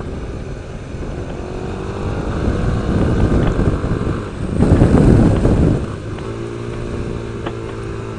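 Touring motorcycle's engine running at road speed, heard from the rider's seat along with wind and road noise. About halfway through, a rush of wind noise swells for a couple of seconds and then drops away, leaving the engine's steady note.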